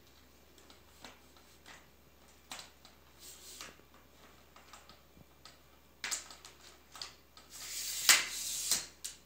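A camera tripod being handled: scattered small clicks and taps from its plastic pan head and leg locks. Near the end comes a longer scraping rustle with one sharp knock as the tripod is lifted.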